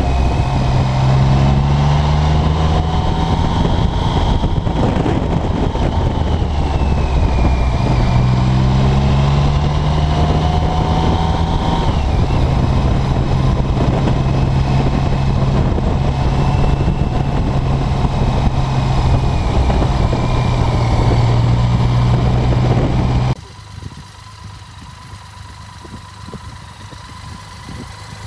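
BMW K75's inline three-cylinder engine pulling the bike along, its pitch rising and falling with the throttle through the bends. About 23 seconds in the sound drops abruptly to a much quieter, steady engine idle.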